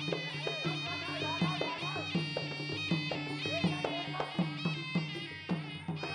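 Kun Khmer ringside fight music: a sralai (Khmer reed oboe) playing a wavering, ornamented melody over a steady drum beat of about three strokes a second.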